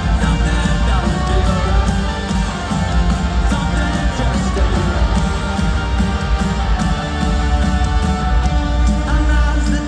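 Live rock band playing, with electric guitars, bass and drums, heard over an arena PA from the crowd.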